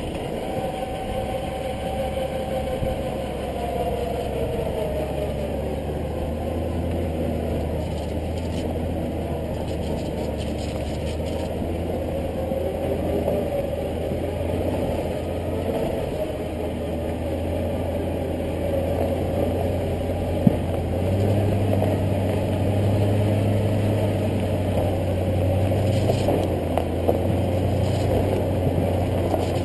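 A 2009 Hummer H3T Alpha's 5.3-litre V8 running at low speed as the truck drives a dirt trail. About two-thirds of the way through, the engine note rises and gets louder, and there is a single sharp click just before that.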